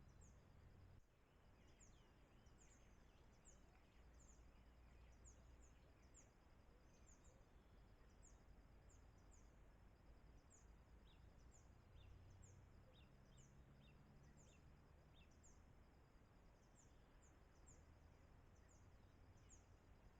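Faint, quiet outdoor background with many short, high-pitched chirps from small birds repeated throughout.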